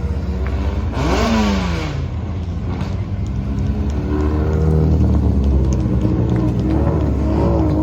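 Race car engines at a hill climb: a steady low engine rumble, with one engine climbing in pitch and then falling away about a second in, and engine revs rising and wavering again from about halfway through.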